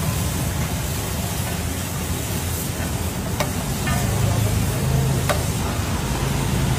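Pav bhaji sizzling on a large flat iron griddle as a steel ladle spreads it, with two sharp metal clinks of the ladle against the griddle in the second half, over a low steady rumble.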